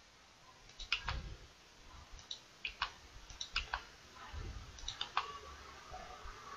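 Several sharp computer mouse and keyboard clicks, scattered singly and in quick pairs, as shapes are selected and deleted.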